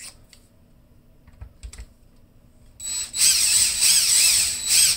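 Cordless drill/driver spinning a screw into a steel ceiling-light mounting plate, starting about three seconds in with a wavering motor whine, after a few faint clicks.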